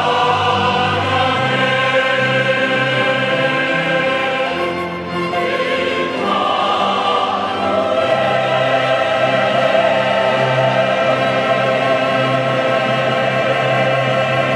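A large mixed church choir sings in Korean with a small string orchestra, in sustained chords. For the second half the chord is held steady as the closing note.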